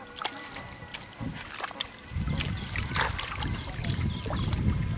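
Muddy water rushing through a gap in a mud bank into a fishing net. A loud, low rushing rumble sets in about two seconds in, after a quieter stretch of scattered short clicks.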